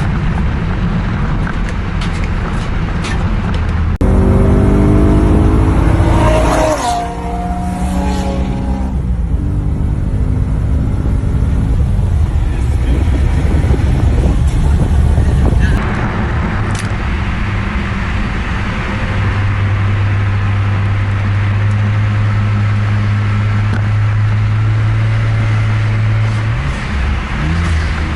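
Car engine accelerating hard in a drag race: about four seconds in the engine note climbs, drops sharply at a gear change and climbs again, over a constant rush of wind and road noise. Later it settles into a steady low drone.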